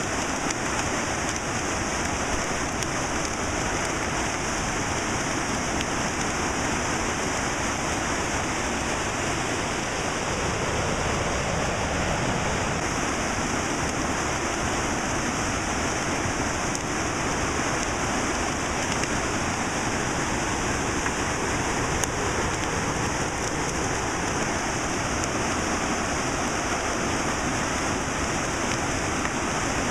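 Whitewater rapids rushing over rocks: a steady, unbroken noise of fast-flowing river water.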